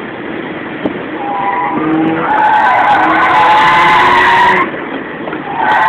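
Mazda RX-8 drifting, heard from inside the cabin: the tyres squeal loudly from about a second in over its Renesis rotary engine, the squeal dropping away briefly near the end and then starting again.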